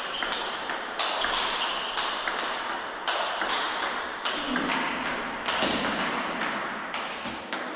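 Table tennis rally: the celluloid ball clicking off rubber-faced bats and bouncing on the Butterfly Octet table in a quick, even alternation, about two sharp hits a second with lighter bounces between, each ringing briefly in an echoing room.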